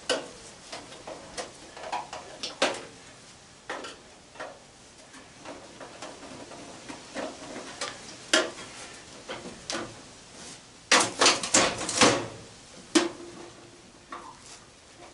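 Scattered metal clinks and taps as a screwdriver works screws out of an old fan's sheet-metal housing, with a quick run of clattering about three-quarters of the way through and one sharp clink just after.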